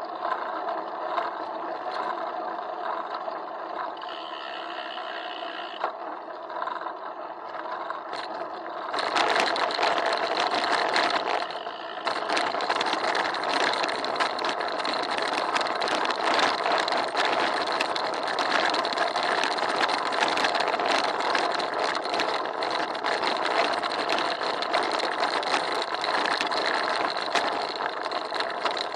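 Rolling bicycle's road noise and rattle carried through a handlebar-mounted action camera's waterproof housing. About nine seconds in it gets louder and turns into a dense, constant clatter as the wheels run over rougher pavement and then cobblestones.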